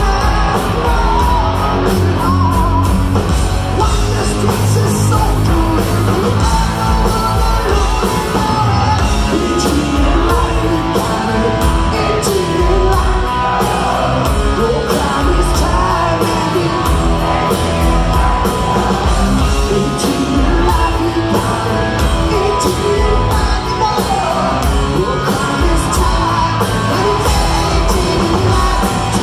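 Hard rock band playing live, with electric guitars, bass and drums under a lead singer's vocal.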